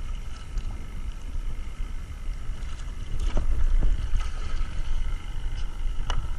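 Water splashing in a few short strokes about halfway through and again near the end, over a steady low wind rumble on the microphone and a faint steady high whine.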